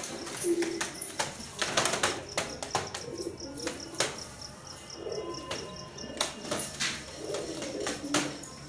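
White Baghdadi pigeons cooing in low, repeated calls, mixed with many short sharp clicks and knocks from their movement in the wire cage.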